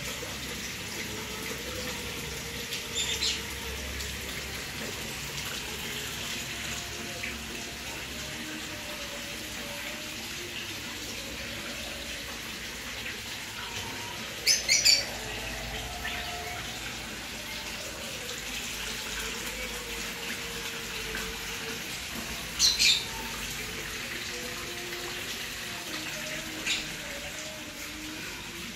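A steady hiss, broken by a few short, sharp chirps, likely from birds, about 3, 15 and 23 seconds in, with a fainter one near the end.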